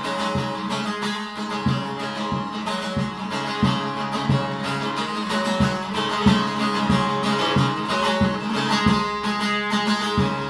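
Long-necked bağlama (Turkish saz) played solo, strummed steadily in an instrumental passage.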